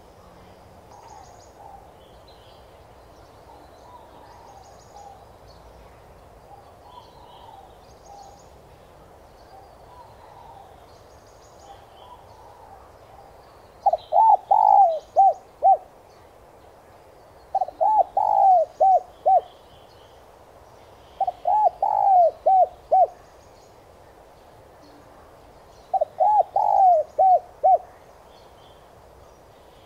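Spotted dove cooing: faint, distant coos for the first half, then, from about halfway in, four loud phrases of several quick coo notes each, a few seconds apart. Faint high chirps of small birds run behind.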